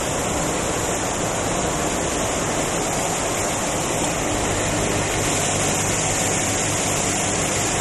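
Steady rushing hiss with a faint low hum under it, unchanging and without knocks or rhythm.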